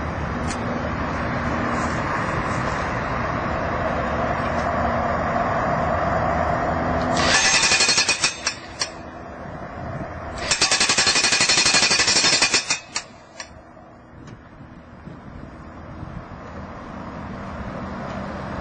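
Corded electric demolition hammer driving a steel Oz Post ground-spike anchor into the soil. It runs with steady rapid hammering for about seven seconds, then gives two louder, sharper bursts of rapid blows, the second about two seconds long, before it stops.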